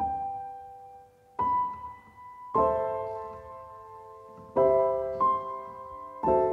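Background piano music: a slow piece of single notes and chords struck every second or so and left to ring and fade.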